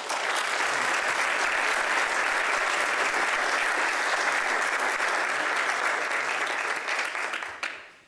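Audience applauding steadily, dying away near the end.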